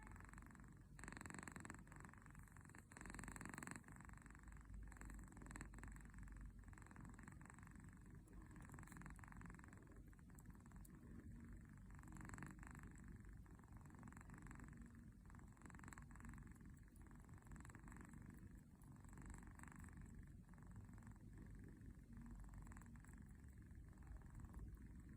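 Kitten purring with a rumble that sounds like a tractor, swelling and fading with each breath about once every second and a half.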